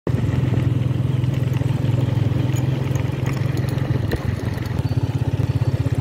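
Motorcycle engine idling with a steady, even pulse.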